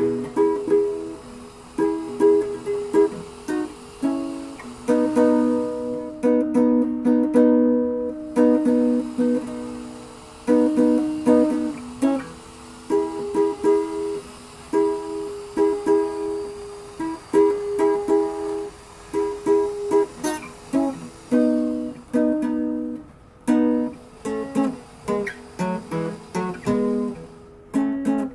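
Background music played on a plucked string instrument, a run of quickly picked notes and chords.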